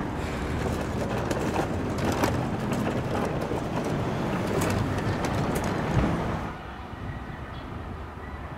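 Roadside ambience: a steady rumble of traffic with a few sharp clatters, dropping to a quieter background about six and a half seconds in.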